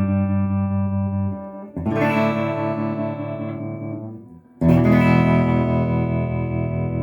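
Electric guitar chords ringing through a Fender Tonemaster Twin Reverb amp with its tremolo on, the volume pulsing quickly and evenly. New chords are struck about two seconds in and again near five seconds, each left to ring out.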